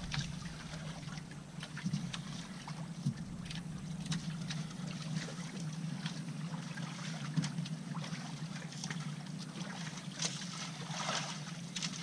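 Fishing boat's engine idling with a steady low hum, with water noise and scattered light clicks over it.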